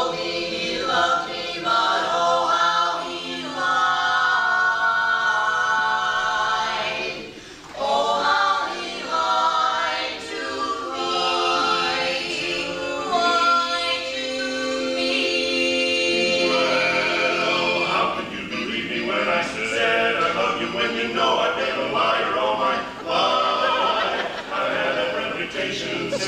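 Unaccompanied barbershop close-harmony singing by a small group of voices, holding ringing chords that shift from one to the next, with a brief break about seven seconds in.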